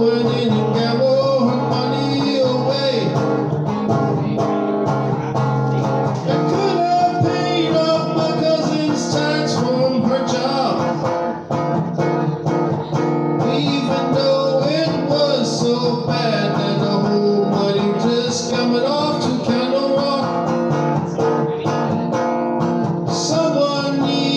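Live music in a room: a guitar-driven country-blues song with a voice singing over it, playing steadily.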